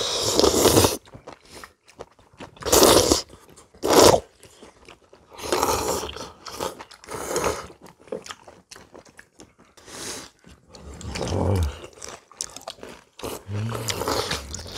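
People eating hot kimchi kalguksu noodle soup: a series of loud slurps of noodles and broth, about seven in all, with chewing between them.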